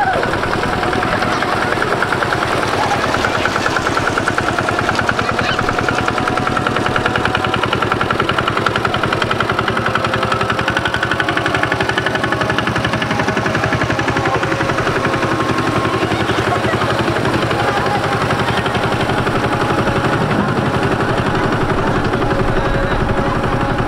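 A small engine running steadily close by, with a fast, even putt-putt.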